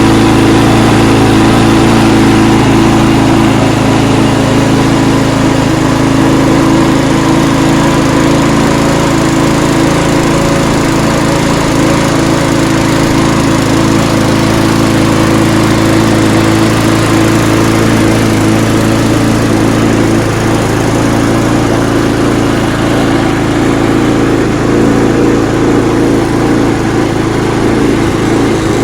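Petrol engine of a Mountfield SP470/SP454 self-propelled rotary lawnmower running steadily, its idle spring freshly sorted.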